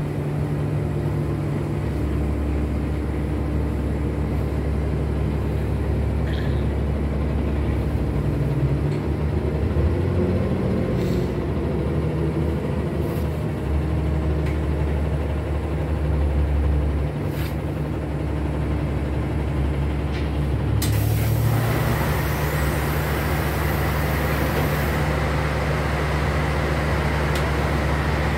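NefAZ 5299 city bus heard from inside the passenger cabin while under way: a steady low engine drone that shifts in pitch a few times. About 21 seconds in, a louder rushing noise comes in and stays.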